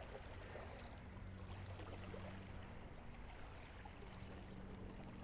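Faint shoreline ambience: small waves gently lapping, over a steady low hum.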